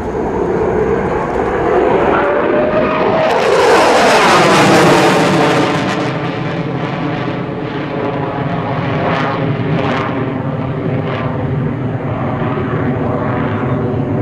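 F-15 Eagle jet fighter flying past on twin afterburning turbofans. The pitch rises and then drops as it passes, loudest about four seconds in. It then climbs away on full afterburner with a steady roar and occasional crackles.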